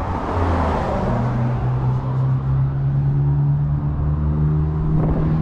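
Motor vehicle on the street: a rushing noise of a car going by at first, then a steady engine hum that rises slowly in pitch.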